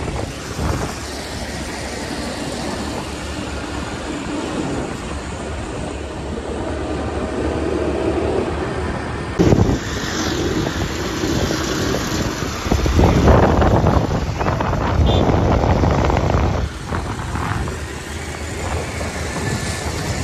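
Riding on a motorcycle in city traffic: the engine and road noise run steadily under wind rushing over the phone's microphone. The wind noise grows louder and rumbling for a few seconds past the middle.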